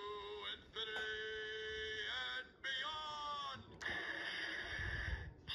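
Takara Tomy talking Buzz Lightyear figure's voice box playing its English sound effects and phrases through its small built-in speaker, set off by its chest buttons. It is a thin electronic sound in several short clips with brief gaps: a held tone about a second in and a hissing whoosh near the end.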